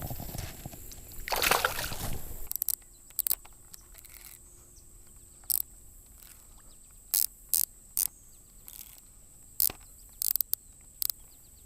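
Water sloshing and splashing around a kayak for about two seconds, then a quiet stretch broken by a scattered series of sharp clicks and knocks, with a faint steady insect-like hum in the background.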